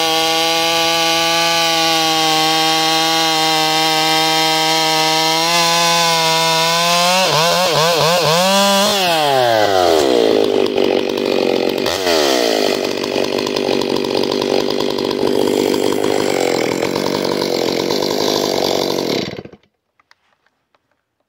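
Stihl 661 C two-stroke chainsaw bucking dry, hard spruce with a square-ground full-skip chain, its engine holding a steady high note under load. About seven seconds in the pitch wavers and drops, and the sound turns rougher and noisier. It stops abruptly near the end.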